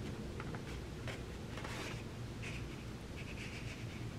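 Scissors cutting through a paper-covered card file folder, with a few faint snips and scrapes over a low room hum.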